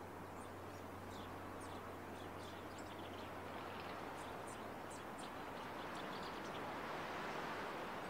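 Small songbirds giving many short, faint, high chirps, scattered irregularly over a steady background hiss.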